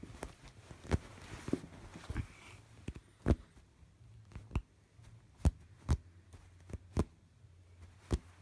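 Irregular sharp knocks, about nine in all, with soft rustling of knit fabric close to the microphone as a kitten grabs and bites at the fabric.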